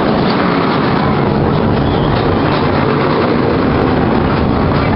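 Small amusement-park train running along its track, a steady, loud rattle and rumble of wheels and cars heard from aboard.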